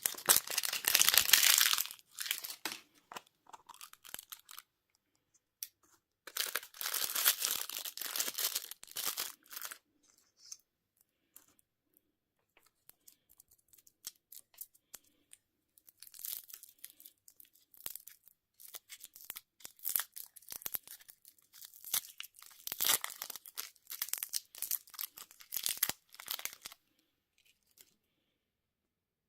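Candy and surprise-egg wrappers being torn open and crinkled by hand, in several bursts of crackly tearing separated by pauses.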